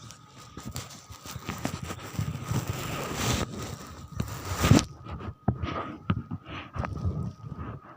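Dense rustling and clattering for about five seconds, ending in a loud knock, then scattered separate clicks and knocks.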